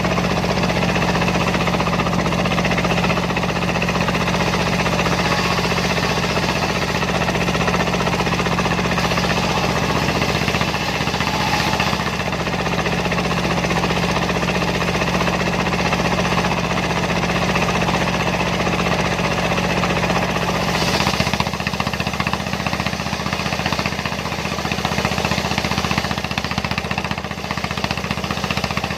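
Single-cylinder Dongfeng diesel engine running steadily as the power unit of a homemade circular sawmill. Its note shifts slightly lower about two-thirds of the way in.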